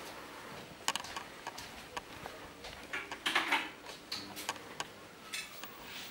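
Footsteps on a wooden floor with scattered light clicks and taps, irregular, with a slightly louder cluster about three seconds in.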